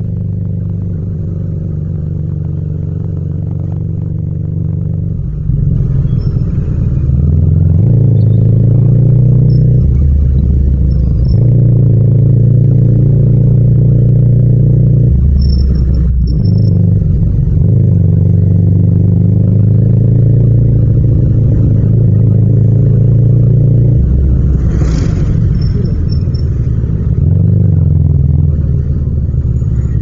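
Yamaha MT-07's 689 cc parallel-twin engine heard from the rider's seat while riding in traffic. It gets louder about five seconds in, and the revs then rise and fall several times with the throttle and gear changes.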